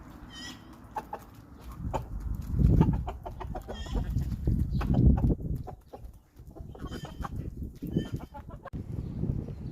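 Chickens clucking, with a few short high-pitched calls, over a loud low rumbling noise.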